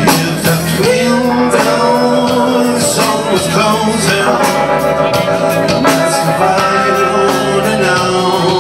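Live rock band playing: a male singer's voice over electric bass and a drum kit with regular drum hits.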